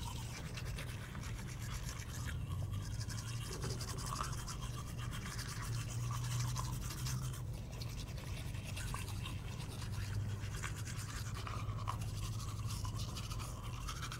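Several people brushing their teeth with manual toothbrushes: a steady scratchy scrubbing of bristles against teeth, with a low hum underneath.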